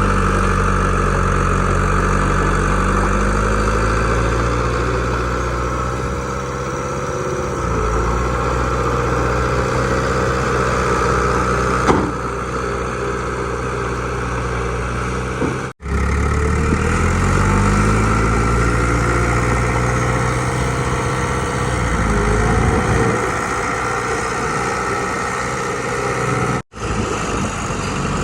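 Diesel engine of heavy earthmoving machinery running under varying load, its pitch rising and falling several times as the throttle changes. The sound cuts out abruptly for an instant twice.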